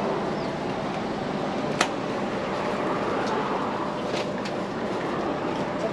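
Steady outdoor background din, with one sharp click about two seconds in and a few fainter ticks after it.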